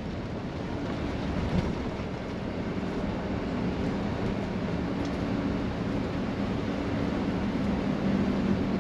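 Inside a moving tour coach: steady engine drone and road rumble, with a low hum that grows a little stronger partway through.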